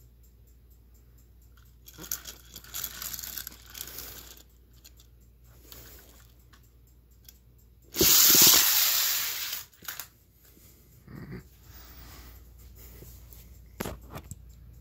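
Push-along toy trains rolling and rattling along plastic track, with rustles and clicks of the pieces being handled. The loudest part is a noisy rush of under two seconds about eight seconds in as the engines run down the track, and there are a few sharp clicks near the end.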